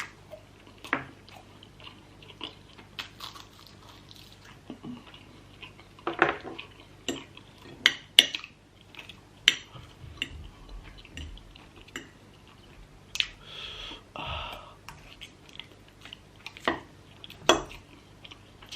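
Eating at a table: cutlery clinking against a dish and chewing, with sharp clinks scattered irregularly throughout.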